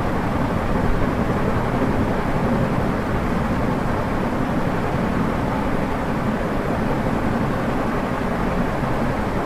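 Steady, even rushing noise with no distinct tones, knocks or changes, strongest in the low and middle range.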